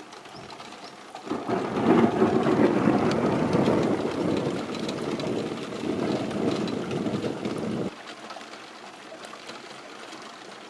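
Rolling thunder rumbling after a lightning strike, building about a second in and cutting off suddenly near eight seconds, over a steady hiss of rain.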